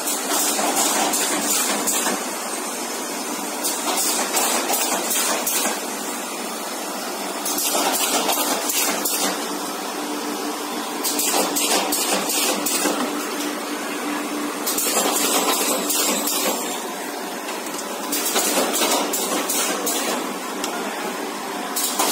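Automatic corrugated partition assembly machine running, with a steady hum and bursts of rapid clattering and hiss about every three and a half to four seconds as it cycles.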